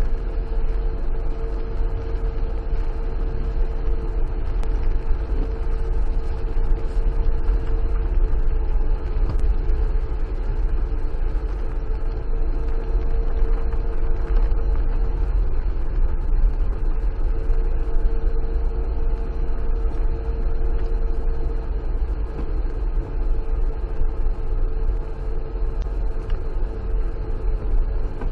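Car engine running steadily as it climbs a rough dirt road, heard from inside the cabin: a continuous low rumble of engine and tyres with a steady whine over it that swells and fades a little.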